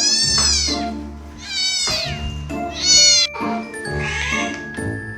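A cat meowing about four times in a row, high-pitched calls a second or so apart, over background music.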